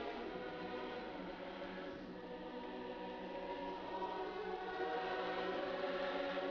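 Background music: a choir singing long, held chords, swelling slightly near the end.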